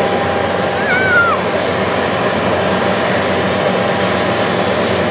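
Steady jet engine noise from a taxiing Ethiopian Cargo Boeing 777 freighter, its GE90 engines at low taxi power. A short wavering whistle-like chirp comes about a second in.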